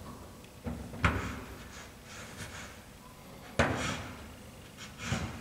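VESDA-E VEP aspirating smoke detector housing being hung on its wall screws by its keyholes, knocking against the wall and screw heads: a few separate clunks, the sharpest about three and a half seconds in.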